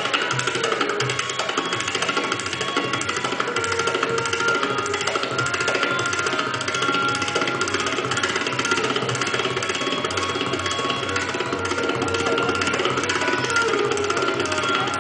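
Tabla played in a fast, unbroken stream of strokes, imitating the rhythm of a running train.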